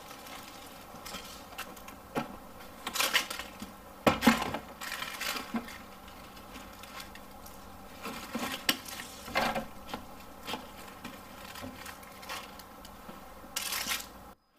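Irregular plastic clicks, knocks and rustling as a flexible hose and its orange universal adapter are worked onto the outlet of a Ryobi 40V leaf vacuum. The loudest knocks come about three and four seconds in.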